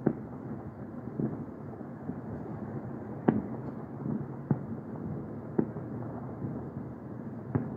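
Fireworks going off: about five sharp bangs at irregular intervals of one to two seconds, over a steady background hum.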